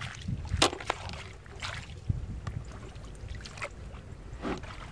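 Hands splashing and sloshing in shallow muddy water while gathering freshwater clams, with a few short sharp splashes or clacks, the loudest about half a second in, over a low rumble.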